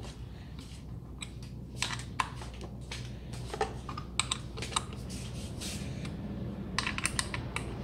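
Irregular small metal clicks and ticks of an Allen key working the clamp bolts of a grinder-to-chainsaw adapter as they are tightened.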